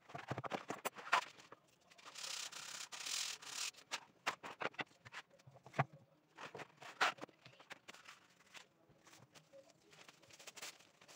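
A long strip of sandpaper being handled and dragged across a workbench: rough rustling and scraping of the paper, loudest for a second or two near the start, with scattered light knocks and clicks.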